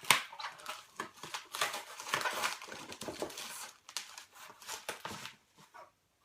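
Packaging being opened and handled by hand: irregular crinkling and rustling with sharp crackles, busy for the first few seconds, then thinning to a few faint rustles.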